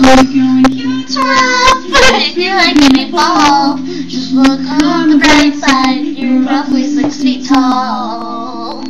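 Two girls singing loudly along to recorded pop music.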